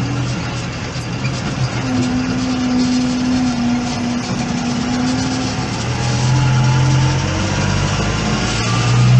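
Diesel engines of maize silage-harvest machinery (tractors and a forage harvester) running steadily. The engine note shifts in pitch a few times, and a faint whine rises slowly in the second half.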